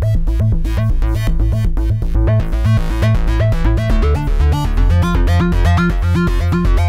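Arturia Analog Lab V's 'Sync Bass Travel' preset playing: a fast synthesizer bass sequence with a melodic line made by the second oscillator in sync mode. The notes step quickly over a pulsing bass, and the sound grows brighter about two and a half seconds in as the Brightness control is turned.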